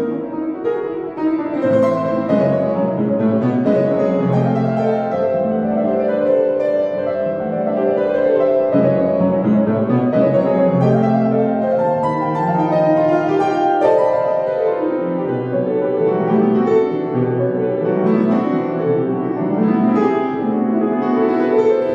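Upright piano playing a classical piece, a steady flow of many overlapping notes without a pause.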